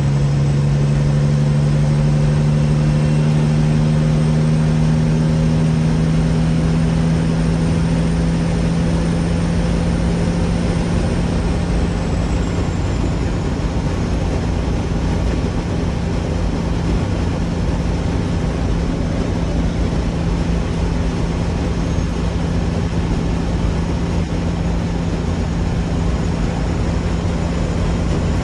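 A big truck's engine drones steadily with road noise, heard from inside the cab while driving at a constant speed. The engine note rises a little at first, then holds steady.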